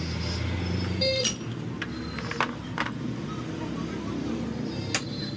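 Metal clinks and knocks from hand tools and parts of a Royal Enfield front fork leg being dismantled. About a second in there is one sharp, ringing metallic clink, followed by a few lighter knocks; a low hum stops at about the same moment.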